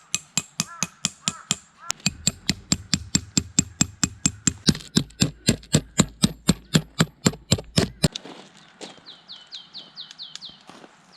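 Tent peg being driven with a hammer: a fast, even run of sharp strikes, about four a second, that turns fainter and sparser after about eight seconds. A bird calls a quick series of falling notes near the end.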